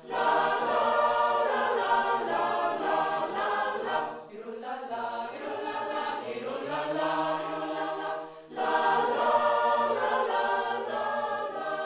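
Mixed church choir, women's and men's voices together, singing a sustained piece in parts. The singing runs in three phrases, with short breaks for breath about four and eight and a half seconds in.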